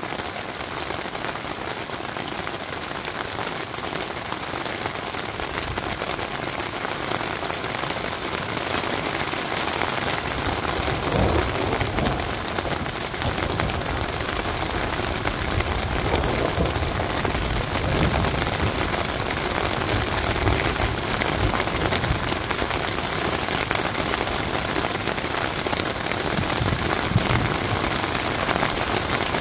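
Rain falling steadily on a tent's fabric, heard from inside the tent, with low rumbles of thunder coming and going from about ten seconds in.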